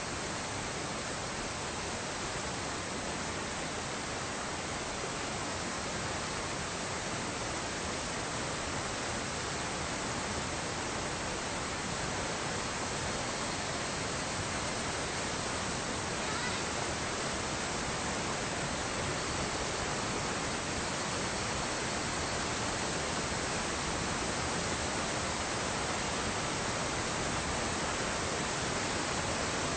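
River rapids: water rushing steadily over rocks, an even, unbroken noise.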